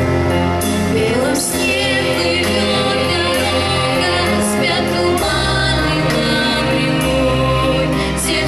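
Children's vocal group singing a song to an instrumental accompaniment with a steady bass line; the voices come in about a second in.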